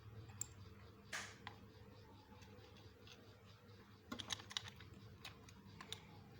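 Faint, scattered small clicks and taps of hard plastic, a short rustle about a second in and a quick run of clicks around four seconds in, as small toy building bricks are handled.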